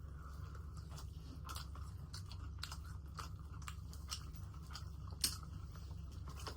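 Close-up eating sounds: chewing with crisp crunches and small mouth clicks scattered throughout, one sharper crunch about five seconds in, over a low steady hum.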